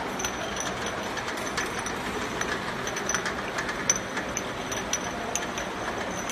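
Round-bottle labeling machine running steadily, with frequent small clicks and clinks of amber bottles knocking together and against the guides as they feed along the conveyor; one sharper click about four seconds in.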